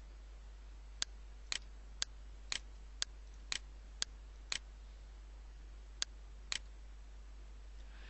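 Computer mouse clicking: ten short, sharp clicks, about two a second in pairs, with a pause about five seconds in, over a faint steady low hum.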